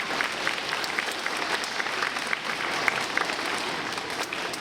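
Audience applauding and clapping steadily, dying away just after the end.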